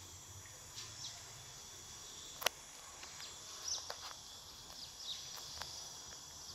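Forest ambience of insects droning steadily at a high pitch, with a few short high chirps and one sharp click about two and a half seconds in.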